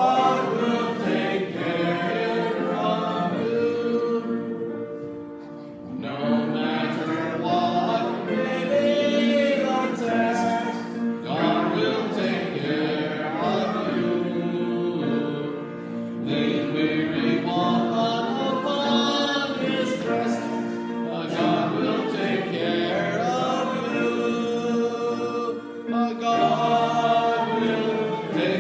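A congregation singing a hymn together, line by line with brief breaths between phrases, and a short pause about five seconds in.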